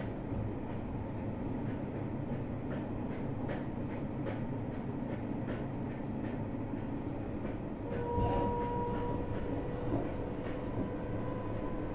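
JR Hokkaido 733 series electric multiple unit running at speed, heard from inside a motor car: a steady low rumble of wheels on rail with light clicks from rail joints. A steady whine joins about eight seconds in and holds.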